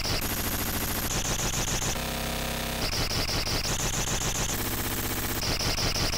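Self-built modular noise synthesizers, patched together with cables, putting out harsh glitchy electronic noise: rapid stuttering pulses under high whistling tones, the pattern switching abruptly about once a second.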